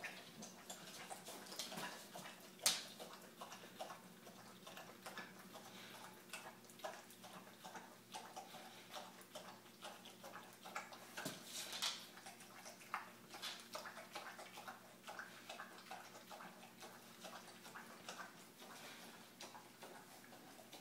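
A dog wearing a mesh muzzle eating out of a metal bowl: a steady run of small clicks and clinks as the muzzle and food knock against the bowl, with a few louder clanks, the loudest about three seconds in.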